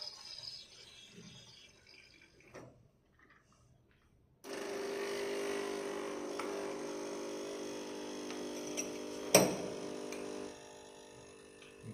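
Nespresso coffee machine starting suddenly about four seconds in and running with a steady hum and hiss as it froths and dispenses milk for a latte. There is a sharp click about nine seconds in, and the sound drops lower near the end. The machine is making too much foam because the foaming setting was left too high.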